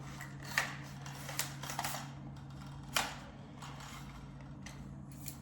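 Several sharp clicks and clacks of a camera tripod being handled and set up, its parts snapping and locking, over a steady low hum.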